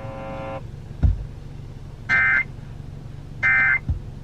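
Two short, buzzy bursts of EAS (SAME) digital data tones over NOAA Weather Radio, about a second apart, starting about two seconds in: the end-of-message code that closes a broadcast warning. A low thump comes about a second in.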